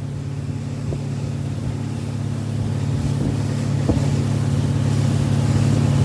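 Malibu towboat's inboard engine running at a steady speed, a low steady drone under the hiss of the churning wake and wind, growing gradually louder.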